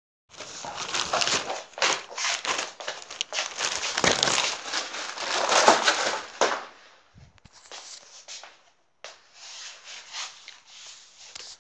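Crinkly wrapping being crumpled and rustled. It is dense for the first six or so seconds, then softer and broken up.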